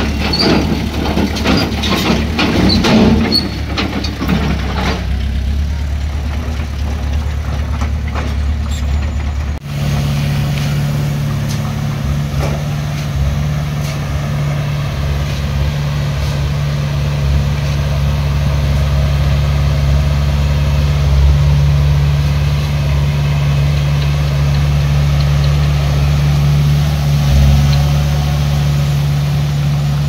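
Diesel engine of heavy construction machinery running, with a rapid clatter of knocks in the first few seconds. After a brief break about ten seconds in, a steady low engine drone.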